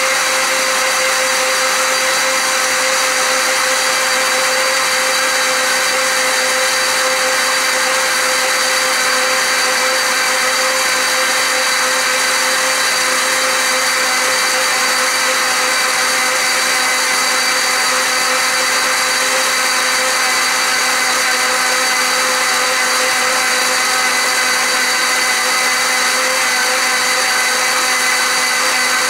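Countertop blender with a glass jar running steadily, puréeing hot butternut squash soup: a steady motor whine over an even rushing noise.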